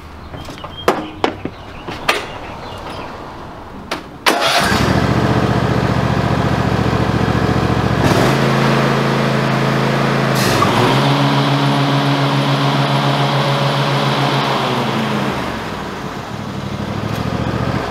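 Ariens IKON X zero-turn mower's engine: a few clicks, then it starts about four seconds in and runs steadily. The engine speed steps up about twice, with a brief dip between, and drops back to a lower idle near the end.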